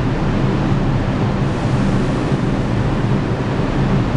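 Steady, loud rumble of a New York subway station with a low hum underneath, as from a train standing or moving at the platform.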